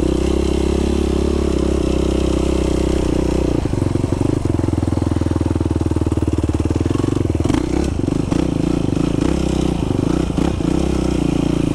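Yamaha YFZ sport ATV engine running at a steady, unchanging speed, with some uneven clatter partway through.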